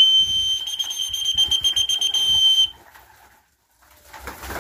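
One steady high whistle note, held for about two and a half seconds and cut off sharply. It is a call whistle for summoning young pigeons in to feed.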